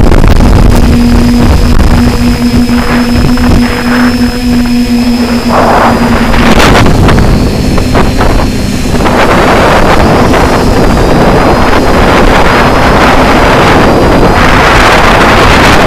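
Multirotor drone's motors and propellers humming steadily, heard through the onboard camera's microphone, with wind rushing over the microphone. The hum shifts in pitch about halfway through, and the wind noise grows stronger toward the end.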